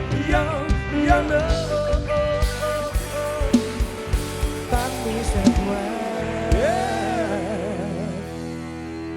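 Live band music from a rot hae (truck-mounted mobile stage band) playing an instrumental passage with no vocals: a lead line bending in pitch over drums, bass and chords. It thins out to a held chord near the end.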